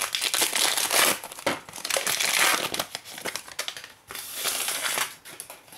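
Foil wrapper of a Panini Prizm basketball trading-card pack crinkling in bursts as it is opened, dying away near the end.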